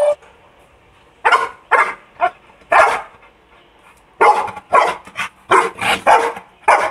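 Red-nose pit bull barking: about ten loud, short barks in two runs, with a pause around the middle.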